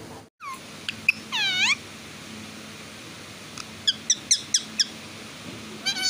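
Ringneck parakeet calling: a couple of short notes, then a drawn-out call that dips and rises in pitch about a second in, followed by a quick run of about six sharp high chirps and another call near the end.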